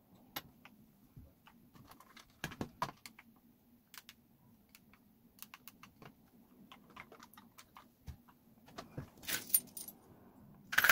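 Plastic car smart-key fobs handled by hand, with scattered light clicks and taps. Near the end a keyring with metal rings jangles.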